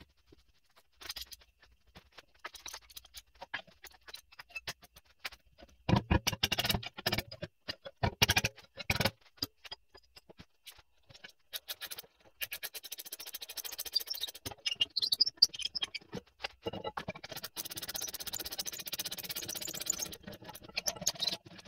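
Rear brake hardware being worked on by hand: metal parts clink and knock, with two long stretches of rapid, steady scraping in the second half.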